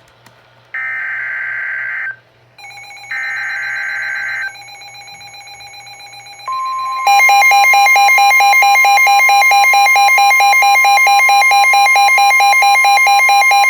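Emergency Alert System header bursts: two short, harsh digital screeches. They are followed by steady alert tones, and about seven seconds in the loud, buzzing two-tone attention signal sounds, announcing that a new warning follows.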